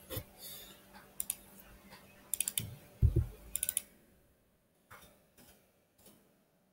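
Computer mouse clicks and keyboard key presses in short quick clusters, with a dull thump about three seconds in; quieter after the fourth second.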